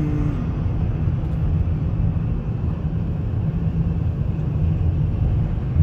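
Steady low rumble of road and engine noise heard inside the cabin of a moving car.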